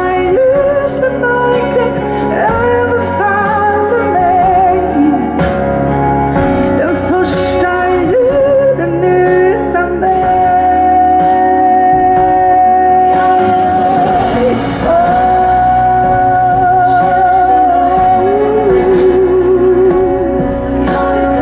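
A woman singing a slow song live into a microphone over instrumental accompaniment, holding long notes with vibrato about halfway through.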